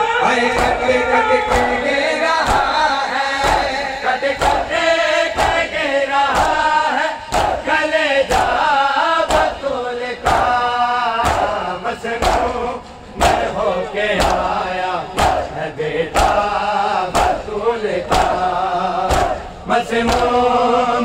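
A crowd of men chanting a noha lament in unison, with rhythmic chest-beating (matam) hand strikes about two a second.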